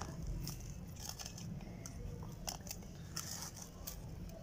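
Firm oily samosa dough being pinched and torn into small pieces by hand in a metal tray: faint sticky pulling sounds with scattered small crackles and clicks, over a low steady hum.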